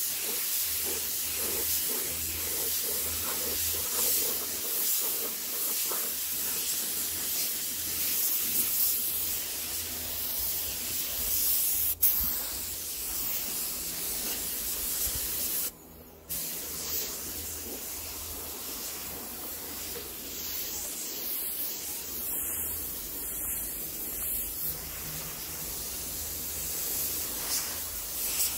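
Gravity-feed compressed-air spray gun hissing steadily as it sprays paint, with a sharp click about twelve seconds in and a brief stop when the trigger is let go about sixteen seconds in.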